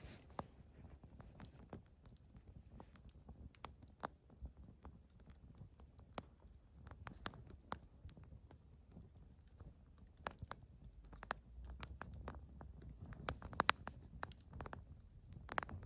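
Wood fire in a fire bowl crackling: irregular sharp pops over a low rumble of the flames, with a run of louder pops near the end.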